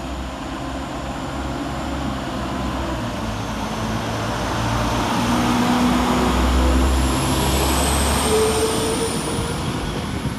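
A Northern Class 195 diesel multiple unit pulling away, its underfloor diesel engines working under load. The sound swells to a peak about six or seven seconds in, then fades as the train draws away, with a faint high whine rising through the second half.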